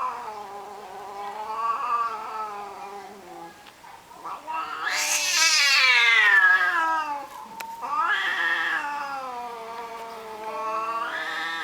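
Tomcats caterwauling in a territorial standoff: long drawn-out yowls that rise and fall in pitch, about four of them, the loudest and shrillest about five seconds in.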